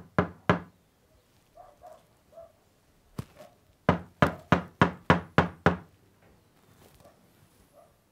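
Knocking on a wooden door: a single knock about three seconds in, then a quick run of seven knocks, about three a second.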